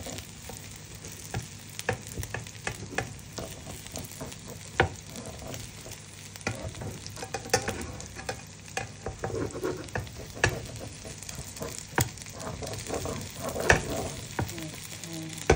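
Egg omelette with onion and tomato sizzling in a frying pan, with a metal slotted spatula scraping and clicking against the pan every second or two.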